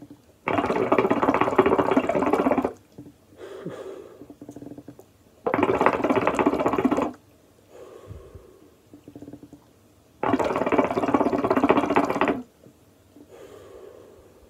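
Water in a glass shisha base bubbling loudly as smoke is drawn through it, in three pulls of about two seconds each. A softer exhale of smoke follows each pull.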